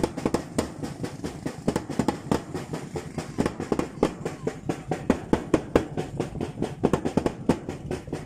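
Drums beaten in a fast, uneven rhythm, several sharp strikes a second.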